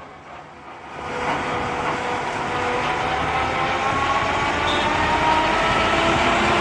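Isher 767 combine harvester's machinery running up to speed: a rumble that swells about a second in, with a whine rising slowly in pitch.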